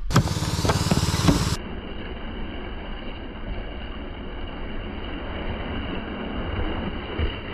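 Old asphalt shingle layers being torn off a roof with a tear-off shovel: steady scraping and ripping over a low rumble, after a few knocks in the first second and a half.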